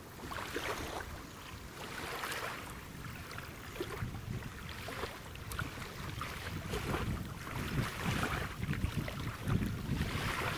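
Wind buffeting the microphone over small waves washing on the shore, the hiss swelling and fading every second or two.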